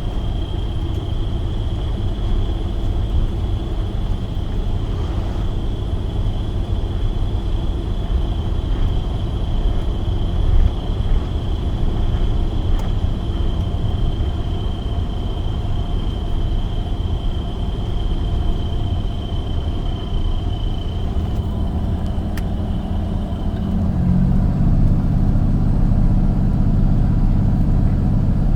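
Box truck's engine and road noise, a steady low rumble while driving, with a thin high whine that stops about 23 seconds in. Near the end the engine note gets louder, as under more throttle.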